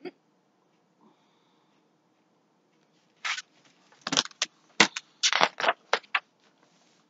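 Handling noise from a hardcover picture book being put down and moved close to the microphone: a click at the start, then about nine scraping, rustling bursts in quick succession beginning about three seconds in.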